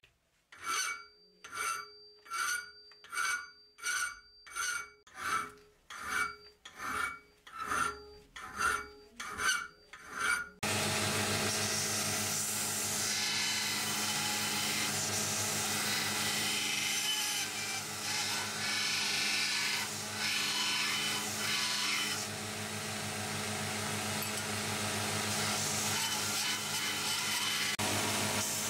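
A hand file rasping across a steel cleaver blade in about thirteen even strokes, each with a ringing tone. About ten seconds in, this cuts abruptly to a belt grinder running steadily, its motor humming, as the blade edge is held against the belt.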